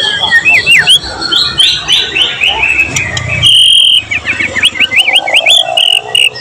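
White-rumped shama (murai batu) singing: a loud run of quick whistled notes sweeping up and down, a held whistle about halfway through, then another fast run of rising and falling notes.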